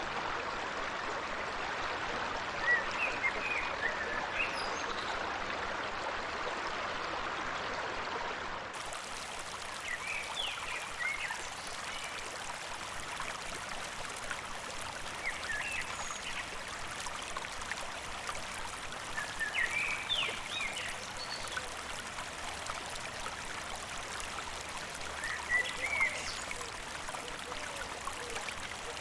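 Forest stream running steadily, with short bird chirps every few seconds. About nine seconds in, the water sound shifts and becomes slightly quieter and thinner.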